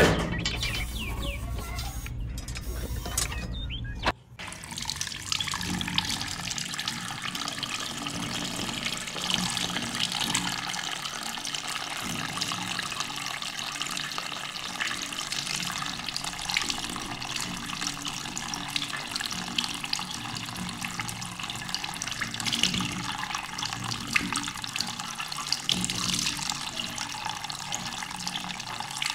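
A thin stream of water pouring steadily into the filler opening of a small homemade toy water tank, splashing as it fills. A low rumble runs under the first few seconds and cuts off suddenly about four seconds in.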